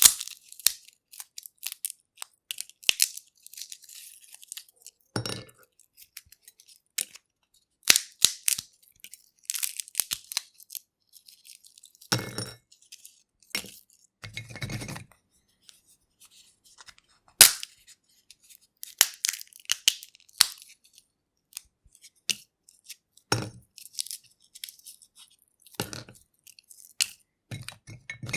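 Peanut shells being cracked and peeled by hand: irregular sharp snaps and dry crackling of the shells, with quiet pauses between, a few fuller crunches and one loud snap a little past the middle.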